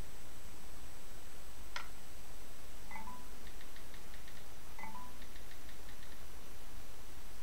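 Steady low hum and hiss of room noise, with a single sharp click about two seconds in and two short high blips, each followed by about a second of faint rapid ticking.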